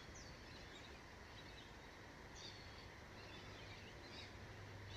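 Faint parrot chirps, a few short high calls scattered over a quiet, steady outdoor background.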